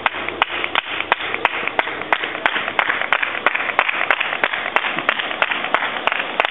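Hands clapping in a steady rhythm, about three claps a second, cheering on a racing cyclist as he rides up.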